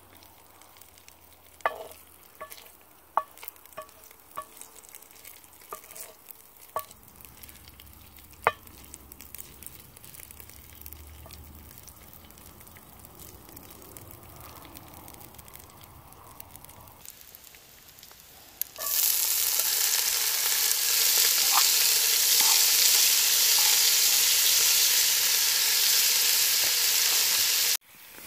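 Bacon frying in duck fat in a cast iron Dutch oven: a faint sizzle with scattered sharp pops and clicks as a wooden spoon stirs. About two-thirds in, a loud, steady sizzle starts suddenly as diced peppers go into the hot fat, then cuts off just before the end.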